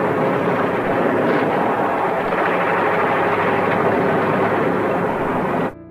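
Battle din from a war film's soundtrack: a dense, steady wash of mixed combat noise, with no single shot or blast standing out. It cuts off abruptly near the end.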